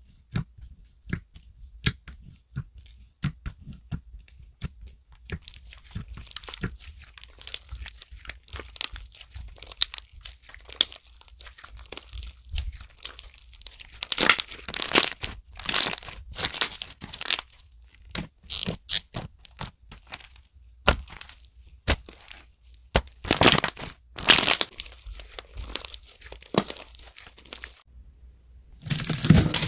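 Hands poking, squeezing and stretching thick white slime: many small sticky clicks and pops as air pockets burst, with louder crackling stretches while it is pulled and kneaded.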